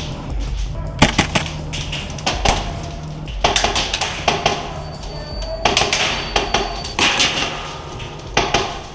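Airsoft guns firing in short bursts of rapid sharp clicks, with BBs cracking against hard surfaces, in several bursts over a low steady background music bed.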